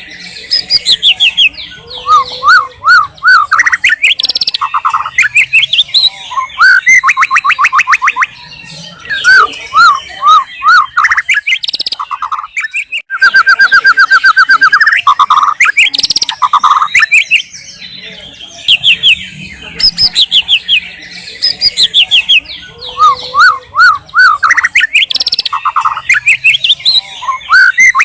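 White-rumped shama (murai batu) singing loudly. Its song is a long, varied run of rapid trills, quick repeated notes and rising and falling whistles, with short pauses between phrases.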